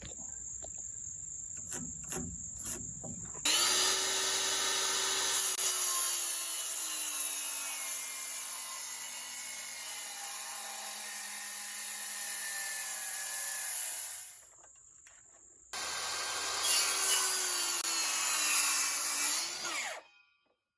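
A cordless power saw cuts a notch into a thick rough-cut 2x6 board in two long cuts. The first runs about 11 seconds and its whine sinks steadily as the blade bites into the wood. After a short break the second runs about 4 seconds and then winds down. Crickets chirp steadily underneath, with a few light knocks before the saw starts.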